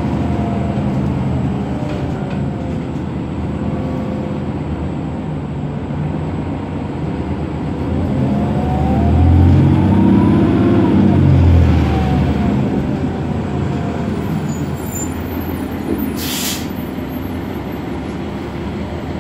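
2007 New Flyer D60LFR articulated diesel bus, heard from inside, its Cummins ISM engine and Allison transmission running at low speed. About halfway through, the engine and transmission whine rise and then fall in pitch as the bus speeds up and slows again. About three-quarters through, a short, sharp hiss of compressed air.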